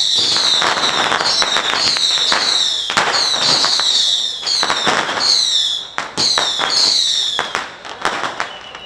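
Firecrackers going off in dense crackling, popping strings, mixed with repeated short high-pitched whistles that slide downward in pitch. It dies down near the end.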